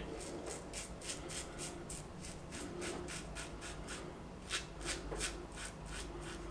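Blackland Osprey adjustable safety razor, opened to its widest setting, 9, scraping stubble on a lathered neck in short, quick strokes, each a faint scratch, about three or four a second.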